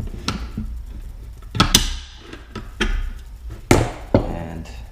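About five sharp metallic knocks and clacks as the rusty, broken rewind spring of an outboard recoil starter is worked loose in its housing. The loudest comes about a third of the way in, and another about three quarters through.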